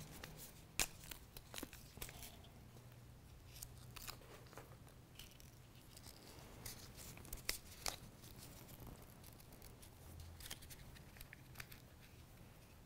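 Faint crinkling, light tearing and scattered sharp ticks of paper backing being peeled off a strip of Dynamic Tape elastic therapy tape as the tape is handled.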